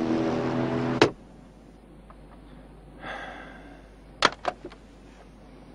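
A steady vehicle hum stops with a click about a second in. Then, in a quiet office, a short breath and a telephone receiver set down on a desk phone's cradle with a few quick plastic clicks.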